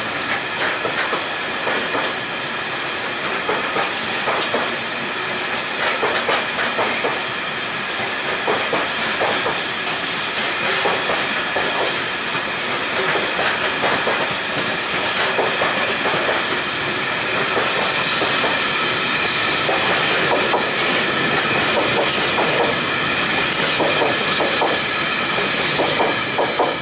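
Loaded ballast box wagons of a freight train rolling past close by: a steady rumble with a rhythmic clickety-clack of wheels over rail joints, and a high-pitched squeal from the wheels on top.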